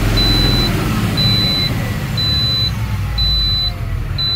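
Diesel truck engine running at high revs. A high-pitched beep sounds about once a second over it, five short beeps in all.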